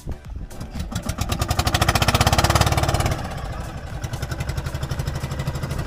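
Small engine running close by, its rapid firing pulses rising to their loudest about two seconds in, then settling to a steady run.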